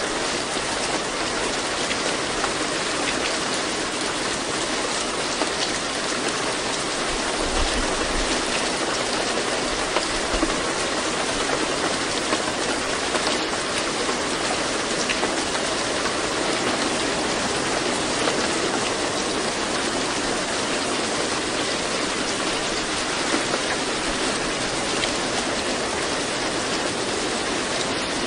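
Steady recorded rain, an even hiss of falling rain with faint scattered drop ticks.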